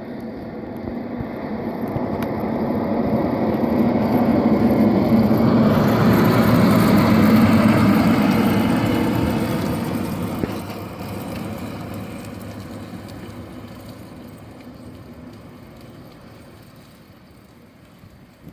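Diesel snowplow dump truck passing while plowing: engine and road noise grow louder over about seven seconds, peak, then fade slowly as it moves away.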